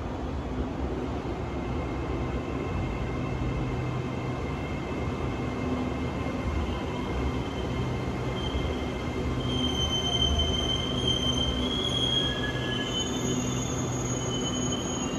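SRT Red Line electric commuter train (Hitachi AT100 multiple unit) running into the station and braking to a stop, its rumble growing louder as it nears. High squealing tones from brakes and wheels come in about two-thirds of the way through as it slows.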